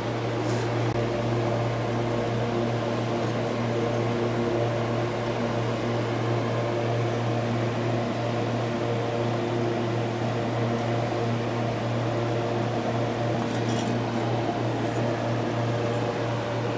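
Steady hum of running machinery: a strong low drone with several steady higher tones above it. A few faint clinks come as metal compressor parts are handled.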